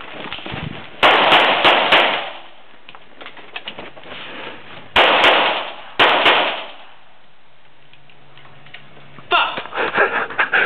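Gunshots from a practical-shooting stage: a quick string of loud shots about a second in, then more shots about five and six seconds in.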